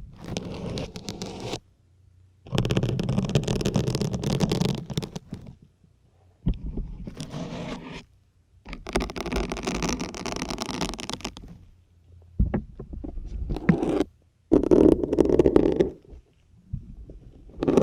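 Syringe needles pushed into a dense grey sponge, one after another: a series of separate scraping pushes, each lasting one to three seconds, with short pauses between.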